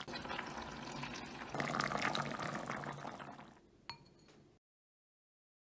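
Kimchi stew bubbling in an earthenware pot (ttukbaegi): a dense crackle of small popping bubbles that swells for a second or so, then fades. A single light clink comes near four seconds in, and the sound cuts off suddenly.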